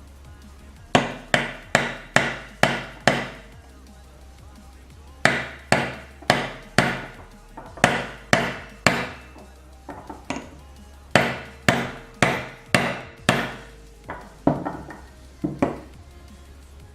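Hammer blows driving a new bushing into a 4L60E input sun gear: about two dozen sharp metal strikes in four runs of quick, evenly spaced blows, the last few lighter.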